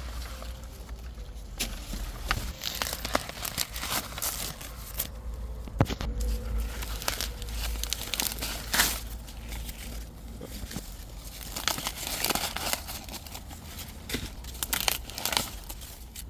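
Dry corn plants rustling and crackling as they are handled, with scattered sharp snaps among the irregular crinkling.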